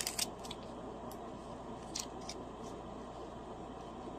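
A few light clicks and taps of small packaging being handled, most of them in the first half, over a steady low hiss.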